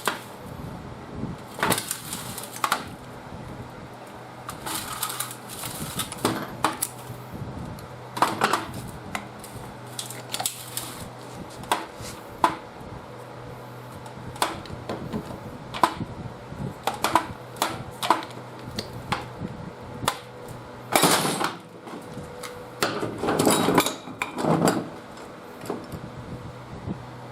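Metal hand tools and engine parts clinking, knocking and scraping at irregular intervals while an engine is being taken apart, with a few longer scraping sounds of about a second each near the end.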